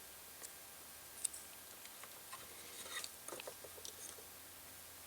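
Faint small clicks and light rustles of hands handling small kit parts and peeling adhesive dots, with a short flurry of ticks about three seconds in.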